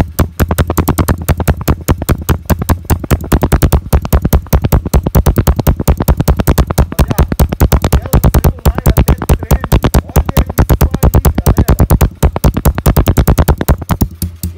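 Honda Titan 125's single-cylinder four-stroke engine idling, unrevved, through an SFX 405 aftermarket exhaust, heard right at the muffler outlet: a loud, deep, raspy run of rapid, even exhaust pulses.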